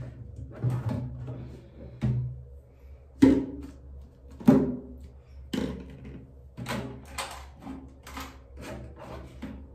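A string of irregular knocks and clunks, about a dozen, each with a short hollow ring, the two loudest about three and four and a half seconds in: plastic toiletry bottles and jars being taken out and set down while a bathroom cabinet is emptied.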